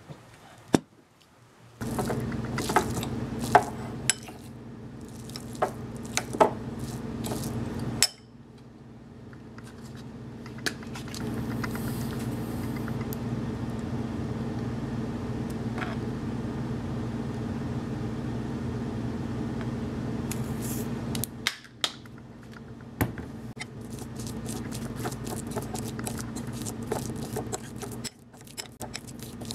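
A metal fork clinking and scraping against a ceramic bowl while mashing chopped hard-boiled egg with mayonnaise, in short bursts of clinks. A steady low hum runs behind, and it drops out sharply a few times.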